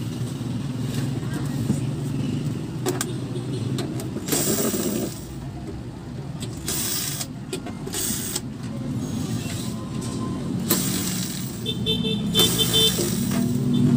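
Cordless drill-driver run in several short bursts, backing out the cabinet screws of an old JVC stereo. A steady low hum sits underneath.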